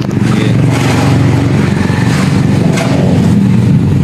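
A motor vehicle engine running loudly and steadily, with street traffic around it.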